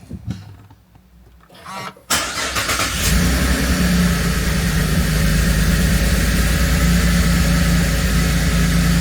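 Holden Commodore SV6's 3.6-litre LFX V6 starting about two seconds in after a brief crank, then settling into a steady idle. It is its first start on freshly fitted spark plugs and new oil, and it runs a little rough at the beginning.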